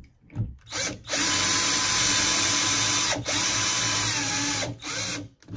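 Cordless drill driving a screw through a thermostat mounting plate into a drywall anchor. A few short trigger blips come first, then two steady runs of the motor whine: about two seconds, a brief pause, about a second and a half more, and one last short blip near the end.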